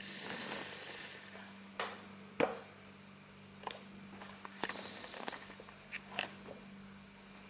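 Light handling noise: a brief rustle, then scattered sharp clicks and taps at irregular intervals, the loudest about two and a half seconds in, over a steady low hum.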